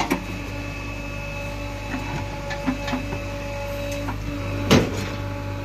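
JCB 3DX backhoe loader working, its diesel engine running with a steady hum and faint whine. Several short clanks from the backhoe arm and linkage, the loudest a sharp clunk about three-quarters of the way through.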